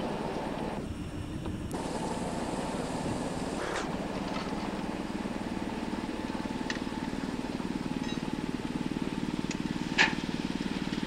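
A small engine running steadily with a fast, even pulse. About two seconds in a high hiss lasts for two seconds, and about ten seconds in there is a single sharp knock.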